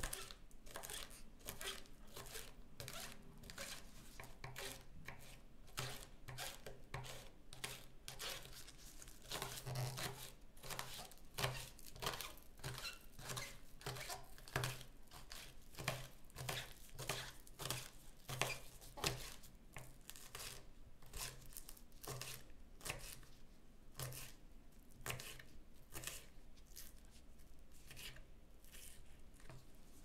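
Kitchen knife slicing through green onion stalks on a wooden cutting board: a long series of crisp, crunchy cuts, each ending in a soft knock of the blade on the wood, roughly one or two a second at an uneven pace.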